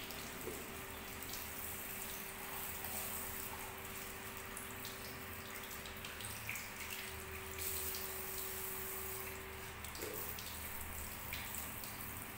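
Water spraying from a handheld shower head at a shampoo basin, running over hair and splashing into the sink.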